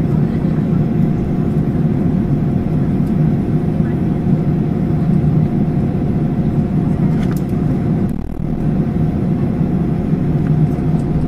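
Steady hum and rush of an Airbus A321-211's CFM56 jet engines heard inside the cabin over the wing, with a steady tone running through it, while the aircraft moves on the ground. The sound dips briefly about eight seconds in.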